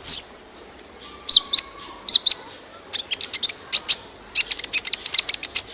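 Kolibri ninja, a small sunbird, singing sharp high chirps that speed up into a rapid run of ticking notes near the end. A faint steady rush of waterfall lies underneath.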